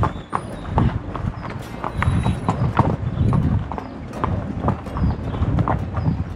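Horses' hooves clip-clopping at a walk on a dirt path, an irregular run of hoof strikes from more than one horse.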